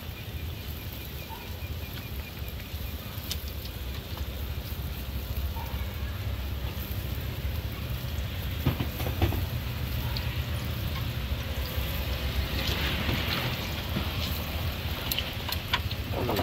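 Youtiao dough strips sizzling as they deep-fry in a pan of hot oil, with scattered small crackles and a denser stretch of sizzling about three-quarters of the way through. Under it runs a steady low rumble.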